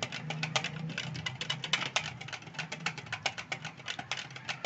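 Yogurt being beaten by hand in a bowl with sugar and cornflour, the utensil clicking against the bowl in quick, even strokes, several a second, as the yogurt is whipped smooth.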